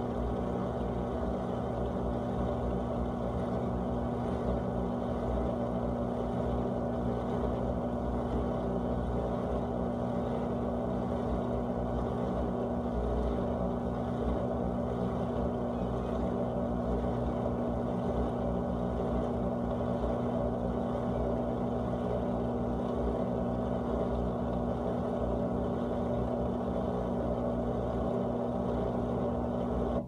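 GE dishwasher running its wash cycle: the pump motor hums steadily, with a constant low tone over the noise of circulating water. It cuts off suddenly at the very end.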